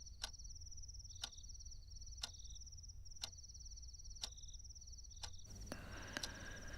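Faint clock ticking once a second, with crickets chirping in high pulsing trills behind it.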